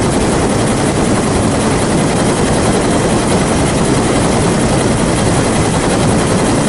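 Military helicopter flying and hovering close by: the rotor and engine make a loud, steady, even noise with no breaks.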